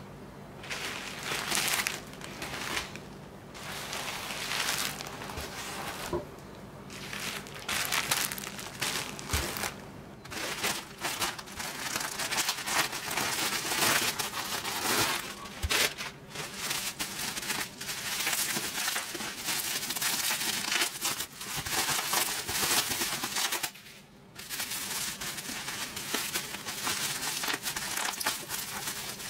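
Plastic packaging crinkling as a poly mailer bag and bubble wrap are handled and opened, in repeated bursts with short pauses.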